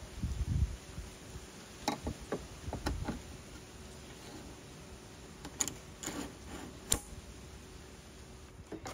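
Aluminium surf-rack arm knocking and scraping against its metal mounting sleeve as it is fitted by hand, with scattered sharp metal clicks, the sharpest a little before the end, as the spring button pin snaps into its locking hole.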